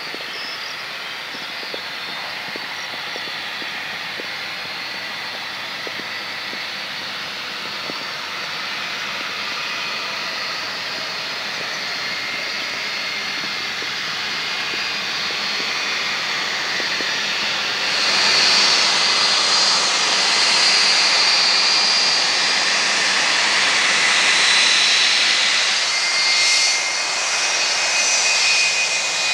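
Boeing 757's twin jet engines running as the airliner rolls along the runway after landing, growing steadily louder as it nears. Partway through, the engine hiss jumps abruptly louder and stays loud.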